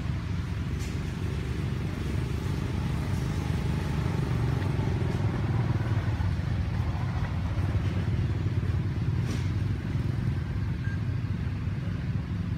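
Steady low background rumble, with a few faint ticks.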